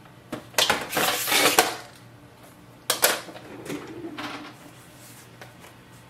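A laptop being picked up and handled. A cluster of knocks and rattles starts about half a second in and lasts about a second, followed by a sharp click about three seconds in and a softer knock a second later.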